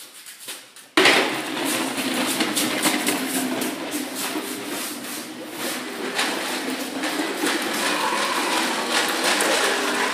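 Plastic push-along baby walker rolling across a tiled floor, its hard wheels clattering and rattling continuously from about a second in.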